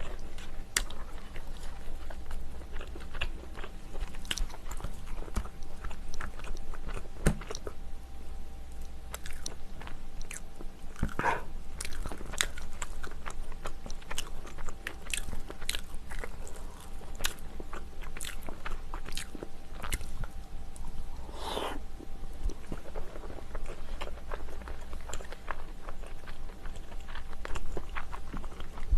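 Close-miked mukbang eating of a seafood stew: chewing and biting, many small wet clicks of the mouth throughout. Two longer, stronger mouth sounds stand out, about 11 and 22 seconds in.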